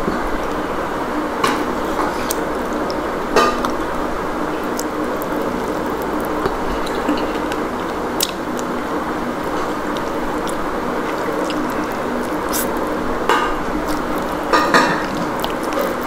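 Eating from a plate of rice and curry: several short clinks of cutlery or fingers against the dishes, spread irregularly, over a steady background hum.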